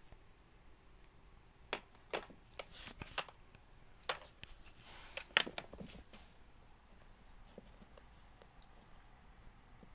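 A window-sash lock clattering and clicking as a cat bats it around: a string of about nine sharp knocks over a few seconds, then only faint taps.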